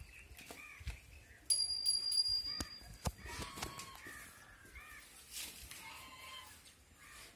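Birds calling around a farmyard, a run of short repeated calls. About a second and a half in, a high, steady ringing tone sounds for about a second.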